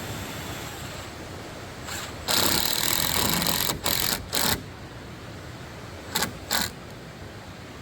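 Power tool run in bursts: one loud run lasting about a second and a half, then four short bursts.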